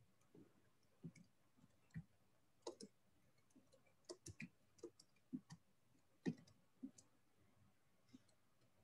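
Computer keyboard typing: faint, irregular keystroke clicks, about two a second with short gaps between runs.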